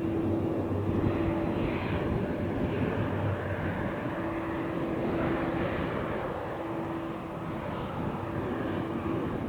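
Airplane engine noise, steady throughout, with a humming tone that fades in and out.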